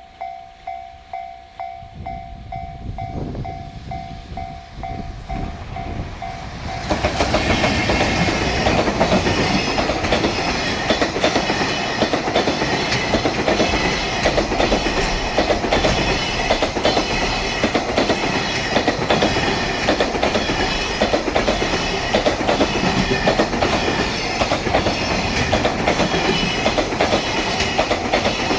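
A level-crossing warning bell rings in rapid pulses as a train approaches. About seven seconds in, a JR Freight EF210 electric locomotive and its long rake of Koki container flatcars pass close by, the wheels giving a loud, rhythmic clatter over the rail joints.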